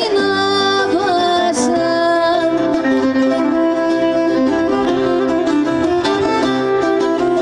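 Live Greek folk dance music: a violin plays a flowing melody over a strummed lute-like plucked string accompaniment, at an even, continuous loudness.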